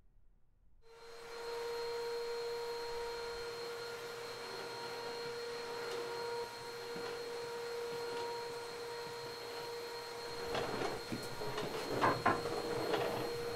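A steady hum with one held tone, then from about ten seconds in a run of knocks and clicks, the loudest about twelve seconds in: knuckles knocking on an office door.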